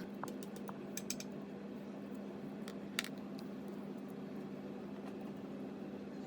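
A few light, sharp clicks and taps, one louder about three seconds in, over a steady low hum.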